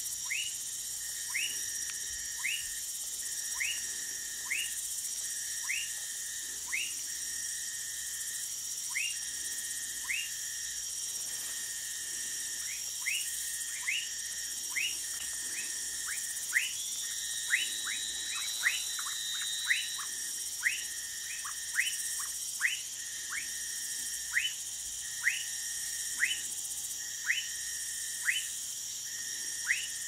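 Frog calls: short whistled notes, each a quick downward sweep in pitch, repeated about once a second and quickening to about two a second in the middle. Behind them, a steady high-pitched drone of insects.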